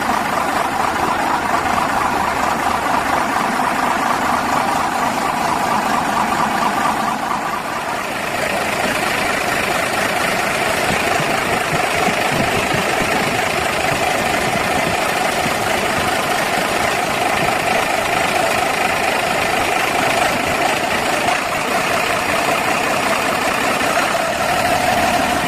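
Heavy diesel engine of a motor grader running steadily at idle, its note shifting once about eight seconds in.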